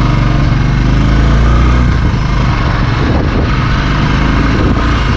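Royal Enfield Bullet 350's single-cylinder four-stroke engine running steadily under way, its low, even beat close to the microphone.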